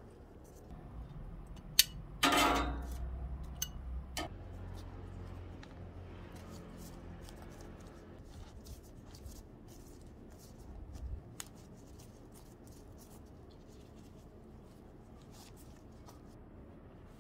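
Plastic-gloved hands handling a crusty seeded sourdough loaf: a sharp click, then a loud crackle about two seconds in, a few more clicks, then quiet rustling and faint scattered ticks.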